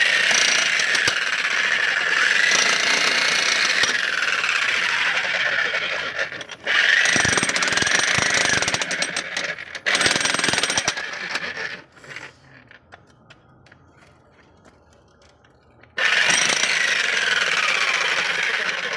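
Jackhammer breaking ground in long runs of several seconds each, with a short break about six seconds in and a pause of about four seconds before it starts again near the end.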